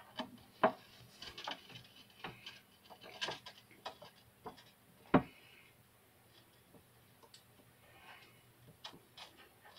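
Irregular clicks and knocks in a turtle tank as an Amboina box turtle feeds, with two sharper knocks, one just under a second in and one about five seconds in.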